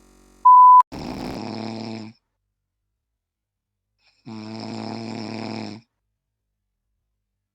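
A short, loud beep, then two loud, drawn-out snores from a man, each over a second long, with dead silence between them.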